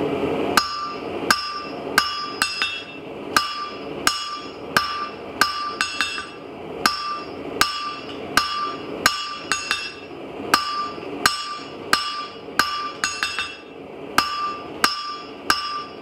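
Blacksmith's hammer striking square bar stock on an anvil in a steady rhythm, about three blows every two seconds. Each blow rings metallically, and now and then a quick second tap follows close after a blow.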